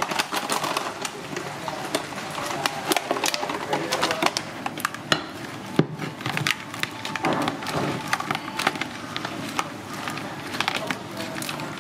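Irregular sharp clicks and taps of mantis shrimp moving against a basin.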